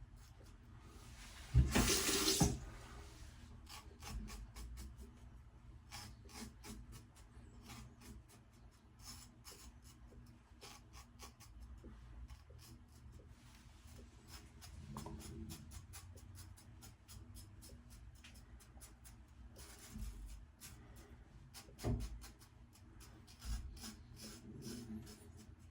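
Eagle lather-catcher safety razor scraping stubble on the neck, many short strokes in quick succession. A brief rush of running tap water comes about two seconds in.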